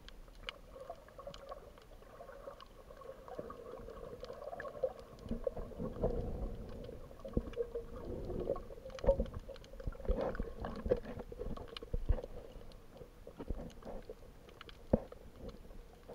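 Muffled underwater sound heard through an action camera's waterproof housing: irregular low thumps and small clicks from moving water and the snorkeler's strokes, over a faint steady hum.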